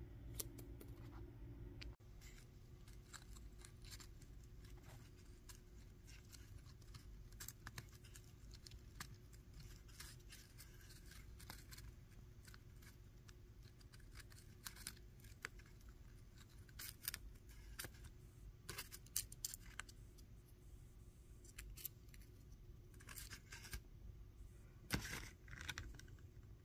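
Paper and card parts of a paper model engine being handled and cut: faint, scattered clicks, scrapes and snips, busier in the second half, with the loudest snip near the end. A steady low hum runs beneath.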